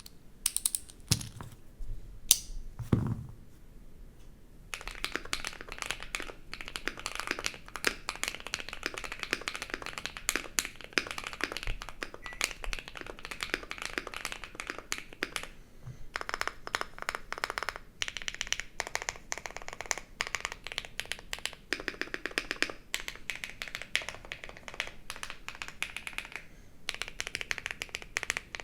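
Typing on a custom Tofu65 mechanical keyboard with an aluminium case and brass weight, lubed KTT Kang White linear switches and PBT keycaps, giving a poppy sound. A few separate key clicks and a duller knock come in the first few seconds, then fast continuous typing with a short pause about halfway.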